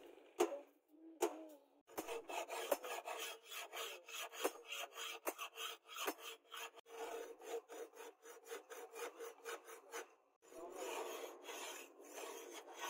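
Hand file scraping along the edge of a steel knife blade forged from truck leaf spring, in rapid, even back-and-forth strokes that stop briefly about ten seconds in and then resume.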